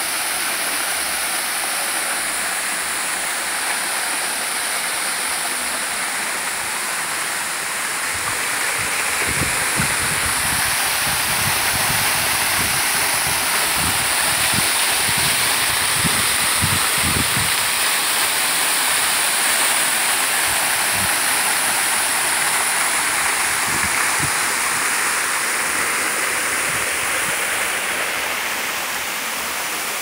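Waterfall's water pouring into its plunge pool: a steady, loud rush that swells a little through the middle. A few short low bumps on the microphone come in the middle.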